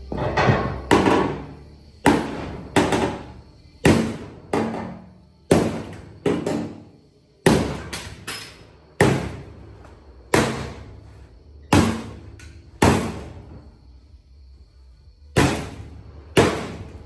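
Hammer blows on the bent steel plate of a trailer fender, struck again and again at uneven intervals with each blow ringing briefly, as the plate is beaten back straight. There is a pause of about two seconds before the last two blows.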